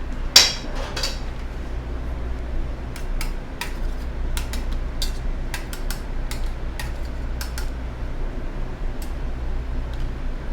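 Utensil knocking and clinking against a mixing bowl while potato matchsticks are stirred into a salmon batter: a sharp knock about half a second in, a second one shortly after, then scattered light clicks, over a steady low hum.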